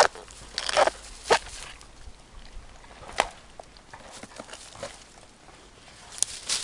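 A dog biting and tearing at the dry husk sheaths of a bamboo shoot: a handful of sharp crackles and snaps, most in the first second and a half, with quieter rustling between.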